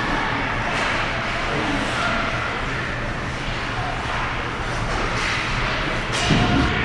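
Steady ice hockey arena noise, with faint voices in the background and a few sharp clicks.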